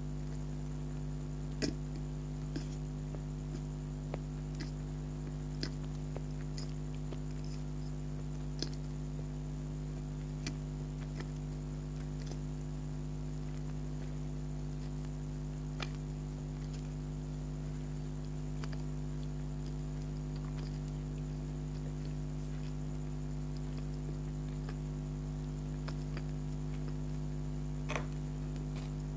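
Close-up eating sounds of a person chewing soft donut: scattered small wet clicks and smacks of the mouth, over a steady electrical hum.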